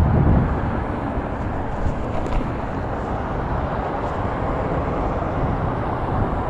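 Steady rumble and hiss of a Bird electric rental scooter being ridden on a street, its wheels on the pavement, while it crawls along held to about 5 mph.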